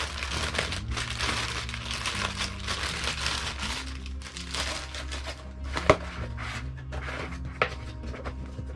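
Plastic wrapping on a new spinning fishing reel crinkling and rustling as it is handled, with two sharp knocks in the second half. Background music plays underneath.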